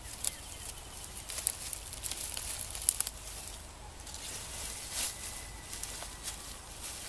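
Leafy branches and dry grass rustling and crackling as they are handled on the ground, with irregular sharp snaps.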